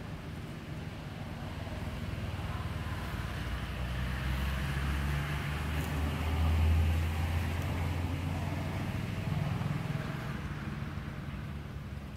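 Engine hum of a motor vehicle going past: a low drone that builds to its loudest a little past halfway, then fades away.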